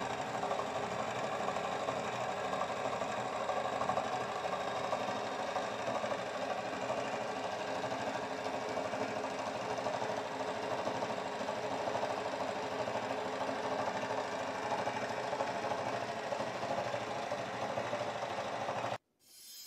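Homemade permanent-magnet rotor motor-generator running, a steady mechanical whir and buzz from the spinning rotor and pulsed coils. It cuts off abruptly near the end.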